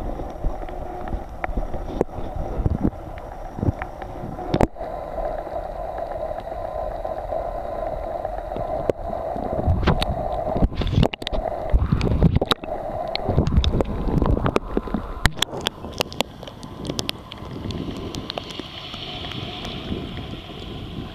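Camera microphone underwater in shallow sea: loud, muffled rumbling with a steady drone and many sharp clicks and knocks as the camera is carried through the water. About fifteen seconds in it breaks the surface, and the sound turns to lighter sloshing water with wind on the microphone.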